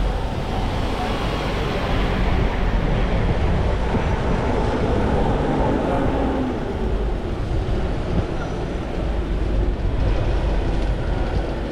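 Steady, loud vehicle engine noise with street noise around it, heaviest at the low end.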